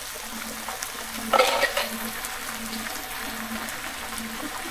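Onions frying in oil in a pan, with a steady sizzle. A brief louder burst of sizzling and stirring comes about a second and a half in.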